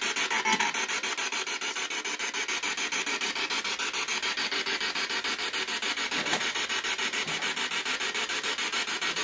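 Spirit box (a scanning radio) hissing static as it sweeps through stations, chopped into rapid, even pulses.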